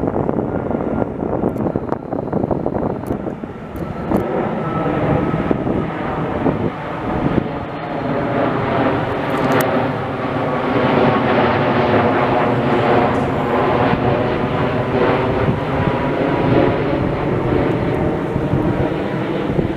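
Jet airliner on landing approach, its engines giving a loud drone of layered, slowly bending tones that swells to its loudest a little past halfway. The spotter takes it for an Airbus A330 and calls it pretty loud for a jet on landing.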